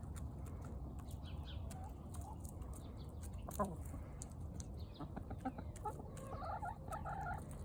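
Backyard hens clucking softly, with a few short low calls and faint pecking ticks; a small cluster of clucks comes near the end.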